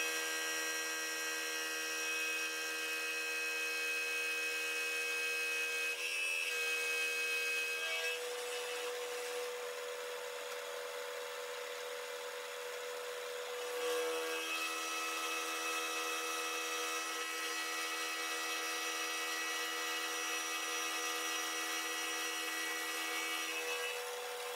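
Vertical milling machine running, its end mill cutting along the edge of a steel plate held in the vise: a steady machining whine of several held tones, whose pitch shifts about 8 and 14 seconds in.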